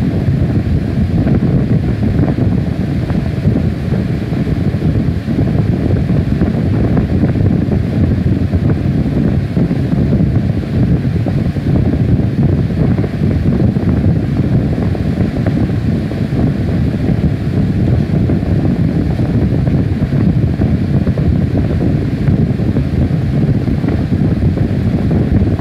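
A steady, loud, low rumbling noise with no distinct tones or beats.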